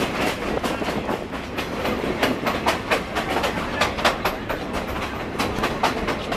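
Passenger train cars rolling along the track, heard from an open-sided car: a steady rumble with irregular clicks and clacks from the wheels.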